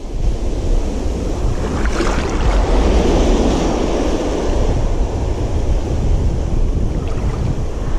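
Small waves breaking and washing through shallow water, with wind buffeting the microphone.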